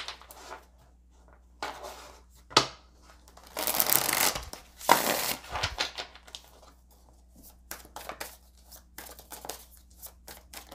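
A tarot deck being shuffled by hand: a few bursts of cards sliding and slapping against each other, the longest about four to five and a half seconds in, followed by lighter scattered card clicks.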